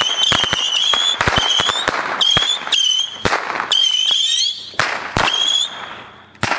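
Compact 300-shot whistling rocket battery firing in rapid succession: overlapping shrill, wavering whistles with many sharp cracks. The shots thin out and stop near the end, with one last crack just before the finish.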